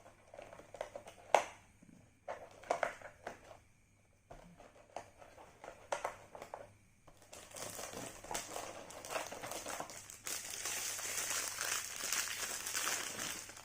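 Plastic packaging crinkling and rustling as it is handled and unwrapped, with a few sharp clicks in the first half, then turning into dense, continuous crinkling about halfway through.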